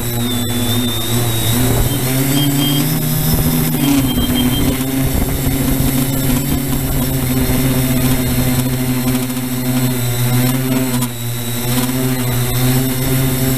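Electric drone motors and propellers humming steadily in flight, with a slight rise in pitch about two seconds in that drops back about four seconds in.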